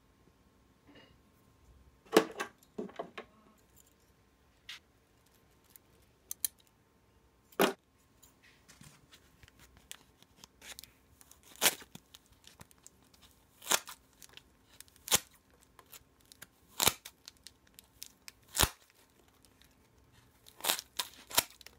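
Freshly sharpened scissors snipping through a block of white packing foam, a dozen or so separate crisp cuts spaced a second or two apart.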